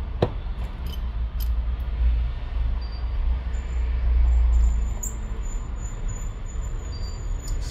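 Low steady rumble, swelling in the middle, with a few light clicks as small metal brackets are pressed into a phone's frame. A thin high whine comes in about halfway through.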